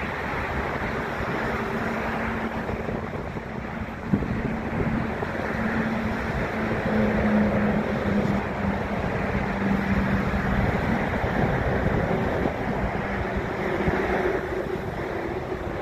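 Wind buffeting the microphone over the steady rumble of airliners taxiing at the airport. A low steady hum holds through the middle, and there is a single knock about four seconds in.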